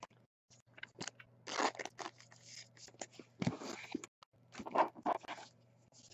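Trading cards and their packaging being handled: a string of short crinkles and rustles of plastic and pack wrapper, the loudest about a second and a half, three and a half and five seconds in, over a faint steady hum.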